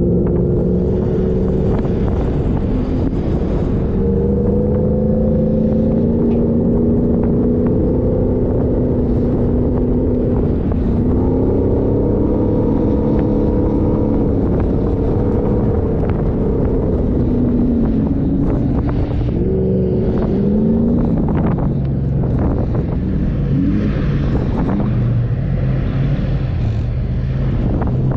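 Off-road 4x4 engine running under load while being driven. Its pitch rises and falls several times as the throttle is worked and gears change.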